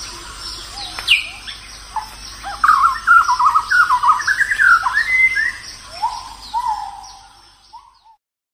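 Birds chirping and singing, with a louder warbling song in the middle, fading out to silence near the end.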